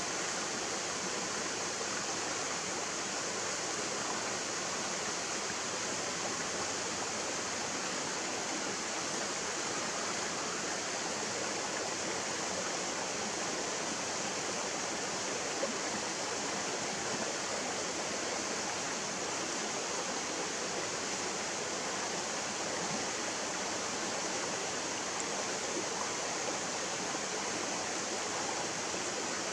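A shallow mountain stream running over rocks: a steady, even rush of water.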